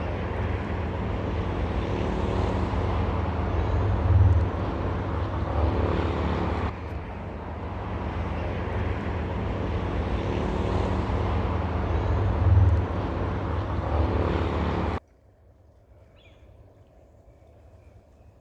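Loud, steady engine noise with a low hum, swelling briefly twice, cutting off abruptly about fifteen seconds in and leaving only a faint background.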